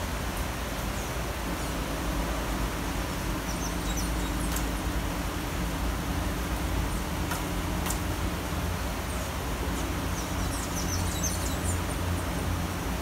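Steady rain in a city, with a low traffic rumble underneath and a few short high chirps about four seconds in and again near the end.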